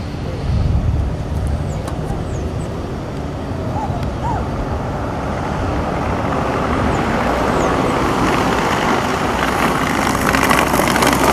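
Skateboard wheels rolling over a paved path with road traffic alongside: a steady rushing rumble that grows louder over the last few seconds.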